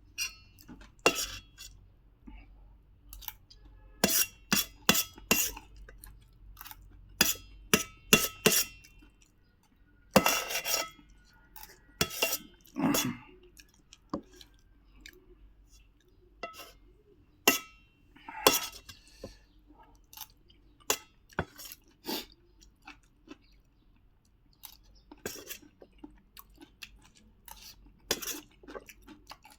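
Eating sounds: scattered sharp clinks and taps of a plate and utensils, mixed with chewing, with a denser cluster of louder clatter about ten to thirteen seconds in.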